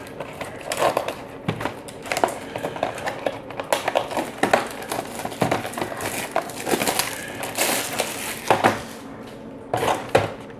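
Plastic shrink-wrap crinkling and cardboard boxes being handled, with scattered light crackles and taps as the wrapping comes off.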